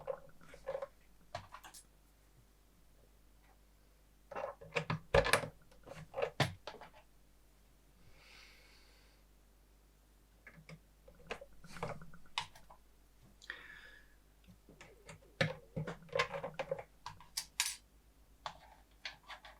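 Irregular clicks and knocks of oscilloscope parts being handled and fitted together during reassembly. They come in loose clusters, the loudest about five seconds in and again near the end, with a couple of short rustles between.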